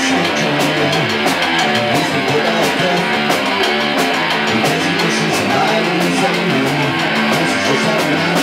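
Live rock band playing an instrumental passage: electric bass guitar and drum kit at full volume, with a fast, even run of cymbal hits.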